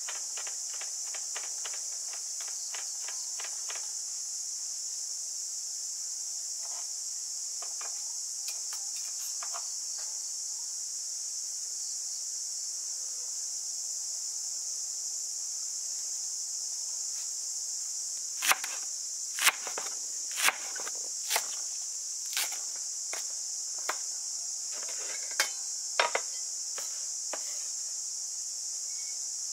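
Insects drone steadily in a high register over cleaver chops on a wooden cutting board. A quick run of light chops comes at the start. From about two-thirds of the way in, single heavy chops fall roughly a second apart, and these are the loudest sounds.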